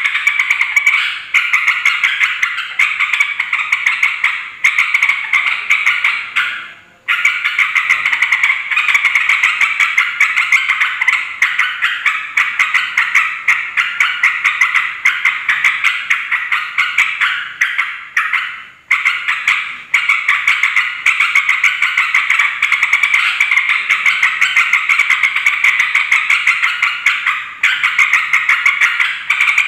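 Yellow-vented bulbul (trucuk) giving its noisy, rowdy chattering call: a fast, near-continuous run of sharp notes, breaking off briefly about 7 and 19 seconds in.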